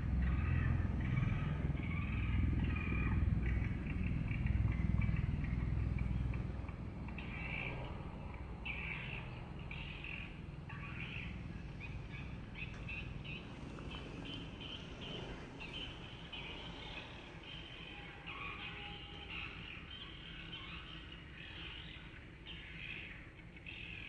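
Swiftlets twittering around a swiftlet house: many short, high chirps overlapping throughout. A low rumble, loudest in the first six seconds, sits under them.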